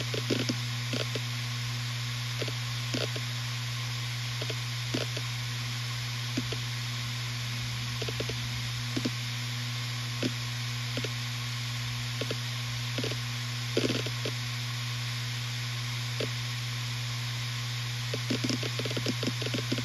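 Western Digital RE 4 TB WD4000FYYZ 7200 RPM hard drive spinning with a steady low hum. Its read/write heads seek with scattered sharp clicks about once or twice a second, then a rapid flurry of clicks near the end.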